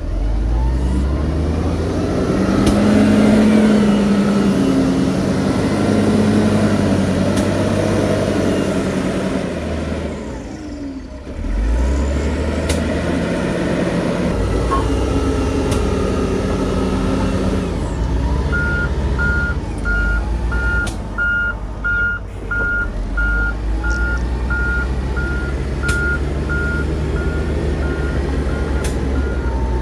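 Heavy diesel machinery working: a big diesel engine runs under load, rising and falling in speed. About two-thirds of the way through, a reversing alarm starts beeping steadily, about one and a half beeps a second.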